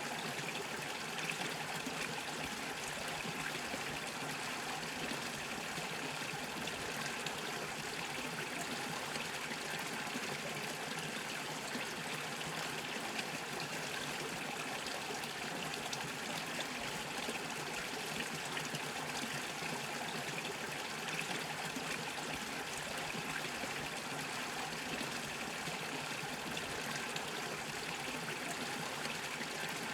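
A small brook bubbling and trickling over stones, a steady, even rush of running water.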